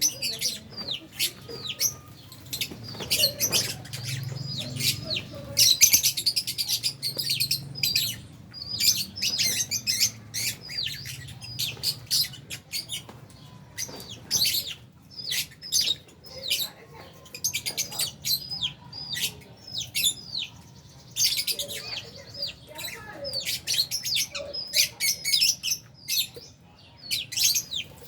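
A colony of Fisher's and albino lovebirds chirping continuously, a dense chatter of rapid, high-pitched calls with brief lulls.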